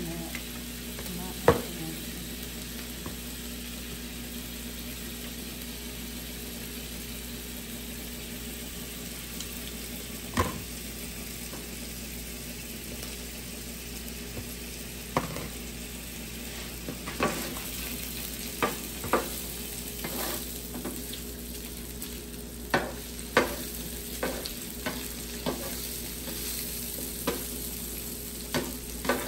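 Meat frying in garlic butter on a Blackstone 22-inch E-Series electric griddle, with a steady sizzle. Sharp utensil taps on the griddle top come only now and then at first and grow more frequent from about halfway through.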